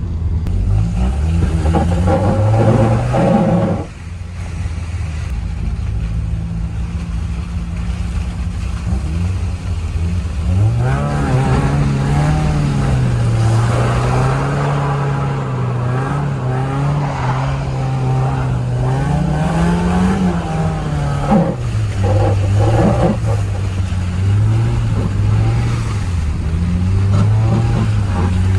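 Mazda Miata four-cylinder engine running while the car is driven, with road noise. The engine note dips about four seconds in, rises again about eleven seconds in, and then wavers up and down with the throttle and gear changes.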